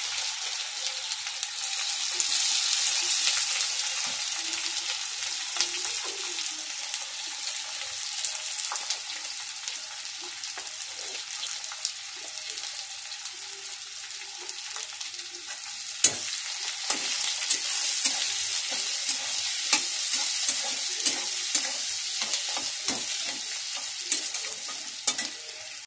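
Chopped onions frying in hot oil with cumin seeds in a steel kadai, a steady sizzle. A metal spatula scrapes and clicks against the pan as it stirs, more often in the second half.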